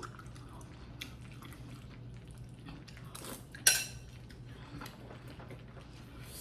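Eating utensils clinking against a dish and bowl: a few light clicks, and one sharp, louder clink a little past halfway, over a low steady hum.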